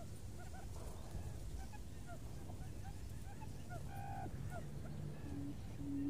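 Many faint, short bird chirps, and near the end two short, low hooting notes: the start of a buttonquail's repeated booming call, the call used to lure buttonquail.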